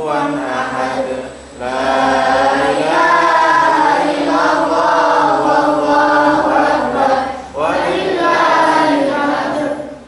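A boy reciting the Qur'an aloud in a melodic chant into a microphone, with long held, wavering notes. The recitation comes in three phrases, broken by short pauses for breath about a second and a half in and again about seven and a half seconds in.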